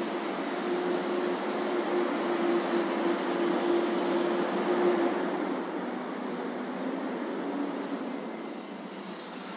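Steady mechanical hum with a rushing noise, carrying a held tone that drops to a lower pitch about six seconds in.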